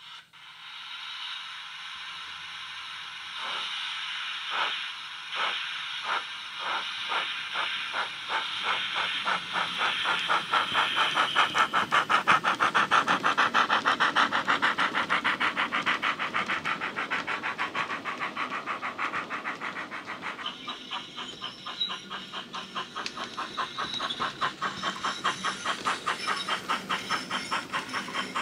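Digital steam sound from the LokSound decoder of a Bachmann Ivatt 2MT tank locomotive model, played through a small sugarcube speaker. A hiss of steam comes first. Then exhaust chuffs start slowly about three seconds in and quicken into a fast, steady beat as the engine gets its train moving.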